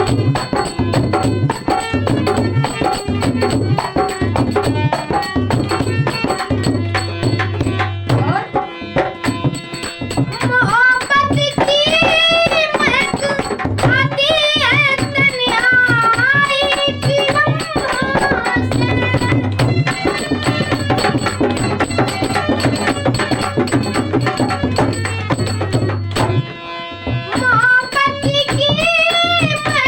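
Ghazal music with tabla keeping a steady rhythm throughout. A wavering melody comes in over it about ten seconds in, drops out for a moment just before the end, then returns.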